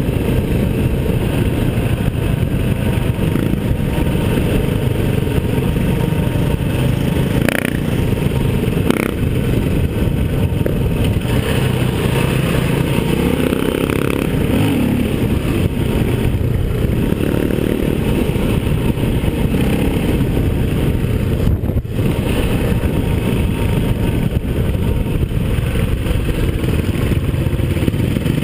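Four-stroke single-cylinder enduro motorcycle running under way, loud and steady, heard from the bike itself. Two brief knocks come about eight and nine seconds in.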